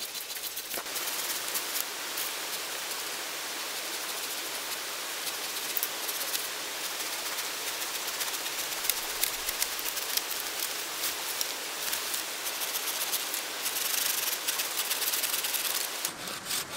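Leafy brush and dry branches rustling and crackling as a long deadwood branch is dragged out of a thicket. Near the end, the quick regular strokes of a Stihl straight-blade hand saw cutting wood begin.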